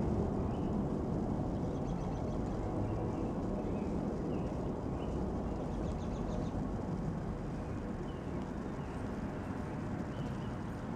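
Woodland ambience: a steady low rumble that slowly fades, with a small bird giving short chirps about once a second.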